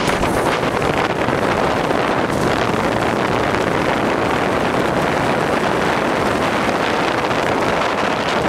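Steady wind buffeting the microphone on a moving motorbike, a loud even rush of noise.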